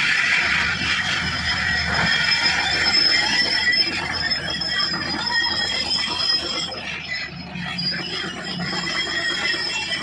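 JCB tracked excavator driving on its steel crawler tracks: the undercarriage squeals steadily over the engine running.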